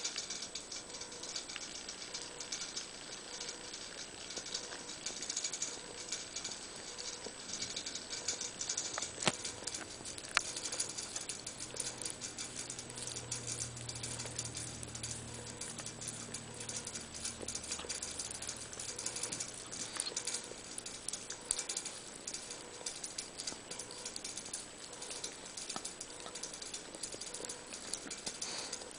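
Small dog licking the cream filling off an Oreo cookie held in fingers: a fast, steady run of small wet licks and tongue clicks, with a couple of sharper clicks about nine and ten seconds in.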